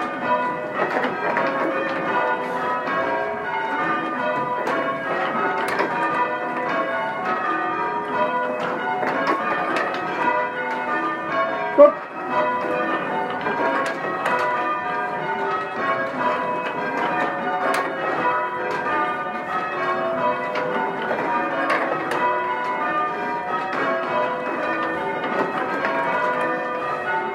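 Change ringing on a ring of six church bells from mixed founders, the bells striking one after another in a continuous, even rhythm. A single brief loud sound, sliding in pitch, cuts across the bells about twelve seconds in.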